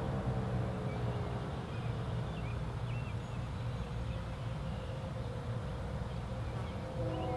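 Low steady hum of distant traffic with faint, scattered bird chirps. Near the end, an outdoor warning siren comes in as a chord of several steady tones.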